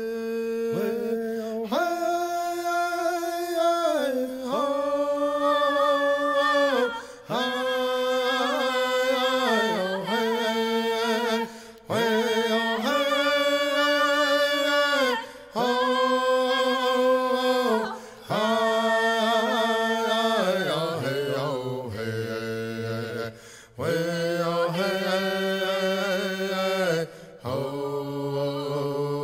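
Chanted song on vocables like 'hey' and 'ho', in the style of a Native American chant: long notes held steady a second or two each, with short breaks between phrases. The pitch drops lower in the last third.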